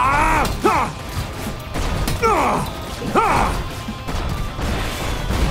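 Cartoon giant-robot battle sound effects: mechanical clanks and crashing impacts over a steady low rumble, with short cries that rise and fall in pitch, near the start and twice more a little after the middle.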